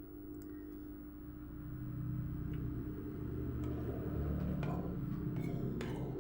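A low rumble that swells about a second and a half in and holds, over a steady hum, with a few faint light clicks.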